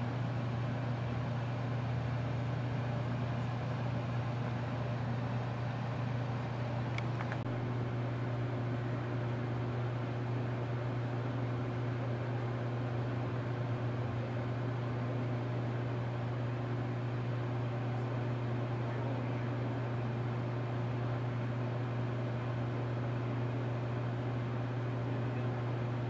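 A steady low mechanical hum, like an idling engine or a running machine. A brief click comes about seven seconds in, and a higher steady tone joins the hum from then on.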